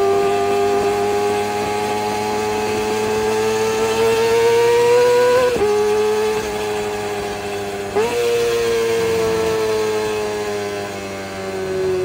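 Kawasaki ZX-25R's 250 cc inline-four running through an Orion aftermarket exhaust, giving a high-pitched, steady engine note. The note climbs slowly, drops suddenly about five and a half seconds in as the bike shifts up a gear, jumps up again near eight seconds, then falls slowly.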